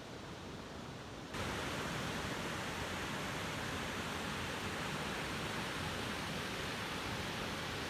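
Steady rush of flowing spring water. Just over a second in it abruptly becomes louder and brighter, then holds steady.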